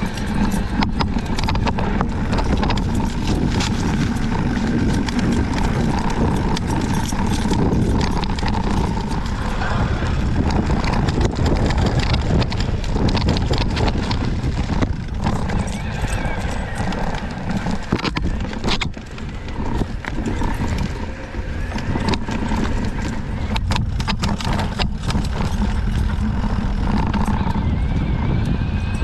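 Mountain bike ridden over rough trail: a steady rumble of tyres and wind with frequent sharp clicks and knocks as the bike goes over roots and rocks. Mixed in is the creaking and cracking of its Fox 38 suspension fork under compression, a fault the rider takes to need a warranty return.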